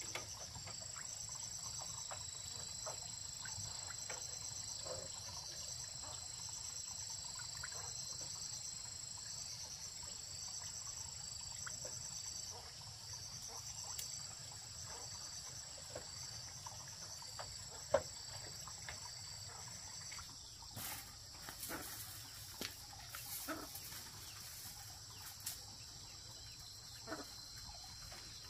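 Insects trilling in a high steady band, with a pulsing chirp repeating over it. From about two-thirds of the way in the trill eases off and scattered sharp clicks and knocks come through.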